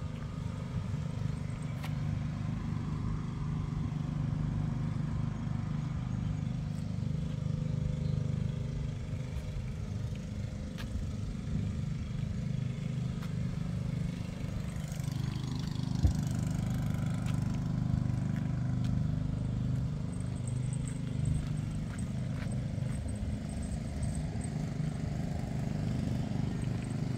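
Engine running steadily at one speed, a low drone. Partway through there is a brief swell of higher hiss and a single sharp knock.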